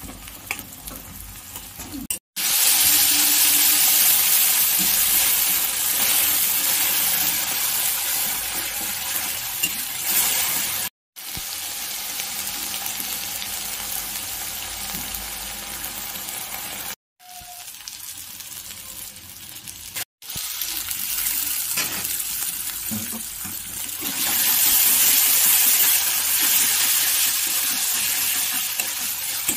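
Onions and spices frying in hot oil in a metal wok (kadai), a steady loud sizzle, with a metal spatula scraping and stirring against the pan. The sizzle cuts out abruptly four times for a moment.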